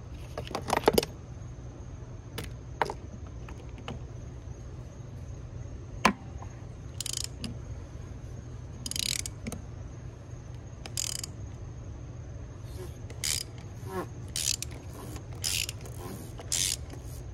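Hand ratchet with a 27 mm socket clicking in short bursts, one every second or two from about seven seconds in, as it is worked back and forth to loosen the oil filter housing cap. A single sharp knock comes about six seconds in.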